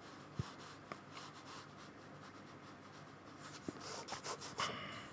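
Paintbrush rubbing and stroking across watercolour paper, faint and scratchy, with a few quick louder strokes about four seconds in.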